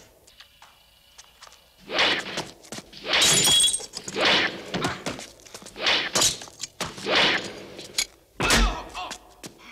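Fight sound effects: a series of about six heavy crashes and thumps with breaking sounds, as a man struggles with a Cybernaut robot on a stairwell. The last crash, near the end, is the deepest and heaviest.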